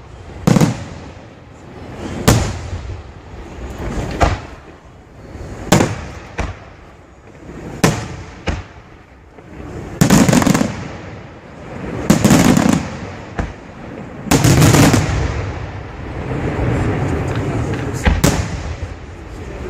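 Aerial firework shells from a La Tirrena Fireworks display bursting in quick succession: sharp bangs about every one to two seconds, with heavier, longer blasts around the middle and a steadier rush of noise near the end.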